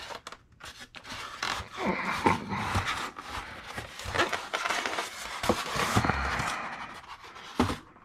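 Styrofoam packing insert squeaking and scraping against a die-cast toy trailer as it is worked loose from its tray and lifted out, with a sharp click near the end.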